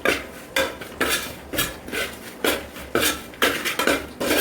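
A thick onion-tomato and crushed-pepper masala being stirred in a cooking pan, the utensil scraping and knocking against the pan about twice a second.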